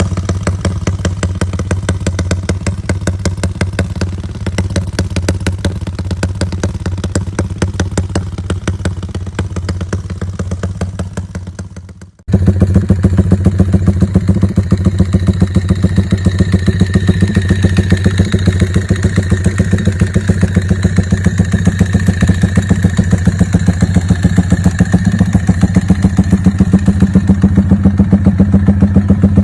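Yamaha Y15ZR 150 cc single-cylinder four-stroke motorcycle engine running at a steady speed, its exhaust firing in rapid, even pulses. About twelve seconds in, the sound dips and cuts off, and a second, louder run of the engine starts.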